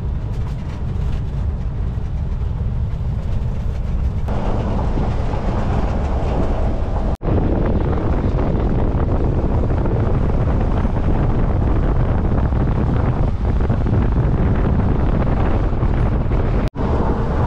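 Steady low rumble of a vehicle in motion with wind noise on the microphone, broken twice by sudden brief cut-outs.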